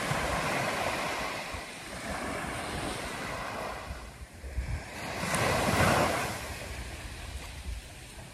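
Small waves breaking and washing up a sandy beach, with wind buffeting the microphone. One wave swells up louder a little past the middle, then drains away.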